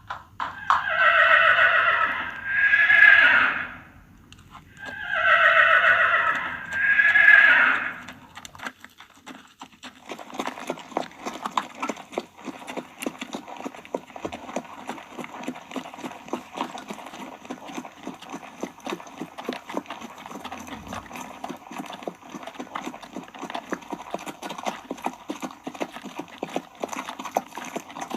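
A horse neighs twice, two long loud whinnies in the first eight seconds, each rising and falling in two swells. Then a dense, fast run of hoofbeats clip-clops to the end.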